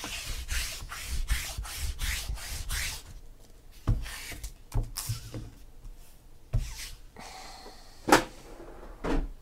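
A lint roller rolled quickly back and forth over stacked cardboard card boxes, making rasping strokes at about four a second for about three seconds. Then come a few scattered knocks and thumps from handling; the loudest is near the end.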